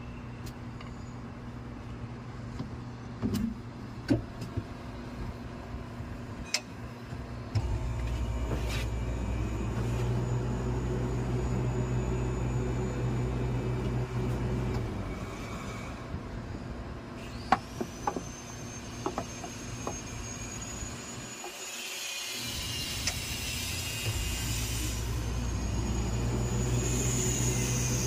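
A low, steady machine hum swells in for several seconds, twice. About two-thirds of the way through, a high thin whistle rises and then holds. A few light clicks are scattered through.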